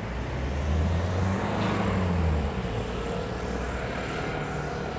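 Street traffic: a motor vehicle's engine passes close by, loudest from about one to two and a half seconds in, over a steady background hum of city traffic.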